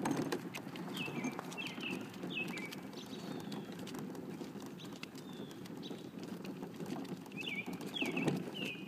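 Plastic toy wagon wheels rolling over asphalt in a steady low rolling noise, with a few clicks. A bird calls in two sets of three short, falling chirps, about a second in and again near the end.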